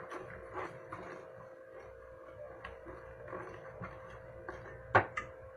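A utensil stirring puto batter in a bowl, with soft irregular taps and clicks against the bowl and a sharper knock about five seconds in. A faint steady hum runs underneath.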